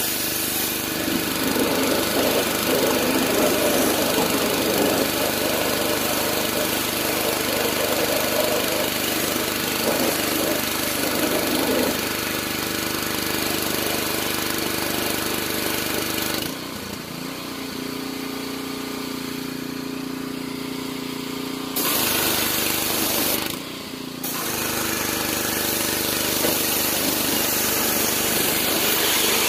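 Pressure washer running with its wand spraying water onto a car, a dense rushing spray over a steady small-engine drone. About sixteen seconds in the spray stops for around five seconds, leaving the engine running alone. Then spraying resumes, with one more short break a couple of seconds later.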